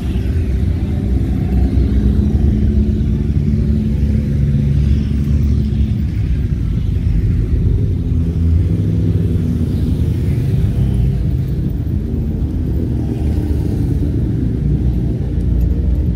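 Motorbikes riding past close by in slow traffic, their engines giving a steady low rumble, with the engine note rising and falling as each bike goes by.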